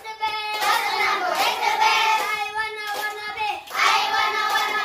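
A class of young schoolchildren singing a yel-yel, a group cheer song, together in unison.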